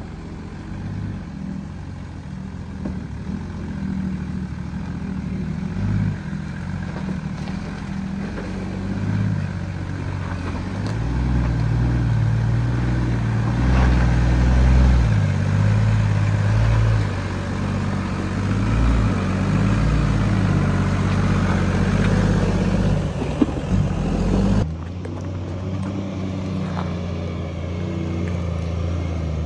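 A Toyota LandCruiser 80 Series engine working under load as the four-wheel drive crawls up a steep rocky climb, with the revs rising and falling. There is a single sharp knock near the end, just before the sound changes abruptly to the vehicle running further off.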